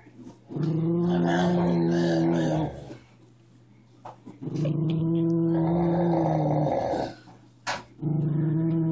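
Miniature schnauzer growling in three long steady growls of about two seconds each, with short pauses between them. A short sharp click comes between the second and third growls.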